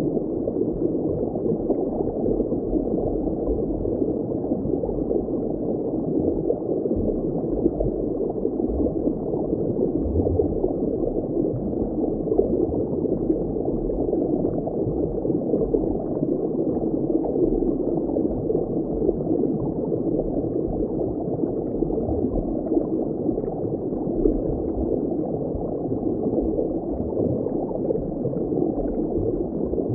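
Steady, muffled bubbling water ambience, with a deeper uneven rumble underneath.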